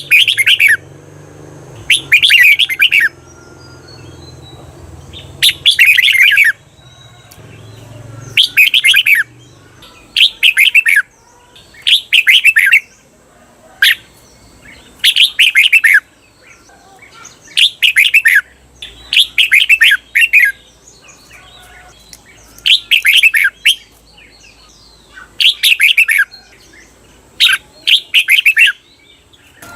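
Red-whiskered bulbul singing its doubled 'เบิ้ล' song: about a dozen short, bright warbled phrases, one every two to three seconds.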